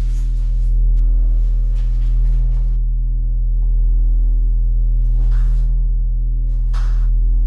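Low sustained electronic drone of the film's score, a steady deep hum of stacked tones. Short rushes of noise come over it in the first few seconds, and again about five and seven seconds in.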